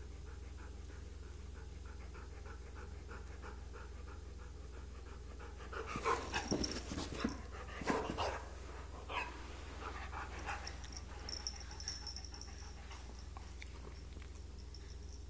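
Siberian husky panting in a quick, even rhythm; from about six seconds in, a few seconds of louder, irregular noises as the dog and cat play, then the panting again.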